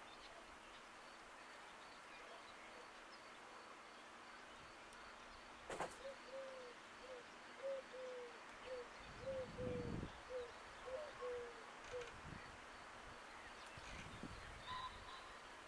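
A bird calling in a run of about fifteen short, slightly falling notes over some six seconds, starting about six seconds in, against faint outdoor background. A single sharp knock comes just before the calls.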